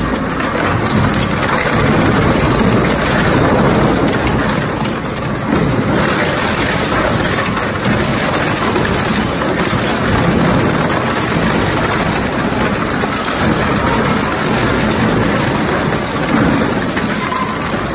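Twin-shaft shredder tearing up a scrap motorcycle, its cutter rotors crunching through the metal frame and plastic bodywork. The machine makes a loud, continuous grinding and crunching noise with no pauses.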